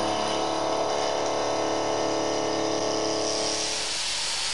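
Seco Super Turbo indexable milling cutter machining metal, a steady multi-tone machining hum that fades away near the end.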